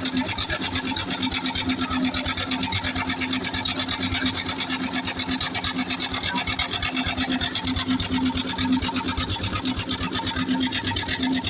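A machine running steadily with a fast, even clatter over a steady low hum.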